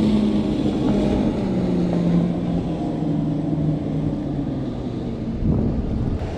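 Center-console motorboat's engine running past, a steady hum that drops slightly in pitch about two seconds in and fades out near the end.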